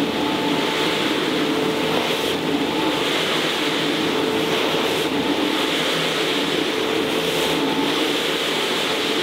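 Counter-rotating brush (CRB) carpet-cleaning machine running across a wet, shampooed rug: a steady motor hum with a constant tone, under the scrubbing of its brushes through the soapy pile.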